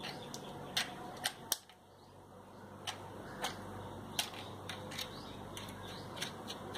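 Scattered light metallic clicks and taps as a drill bit and small steel spanner are handled at the collet of a mini rotary grinder, fitting and tightening the bit. The clicks come irregularly, about ten in all, over a faint steady hum.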